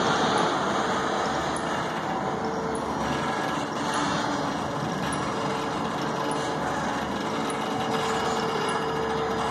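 Rubber-tyred gantry crane running as its trolley carries a hanging shipping container: a steady mechanical drone with a constant whining tone that grows stronger in the second half.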